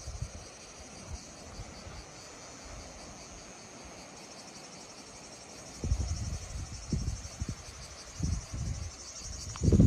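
Insects chirring steadily in a high, fast-pulsing drone. Irregular low rumbles come in from about six seconds in.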